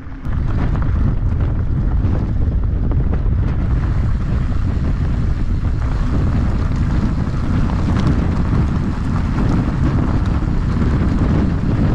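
Heavy wind buffeting on a camera mounted low by a mountain bike's rear wheel, with the wide knobby tyres crunching over a gravel road and small stones clicking. It cuts in abruptly just after the start and stays loud and steady.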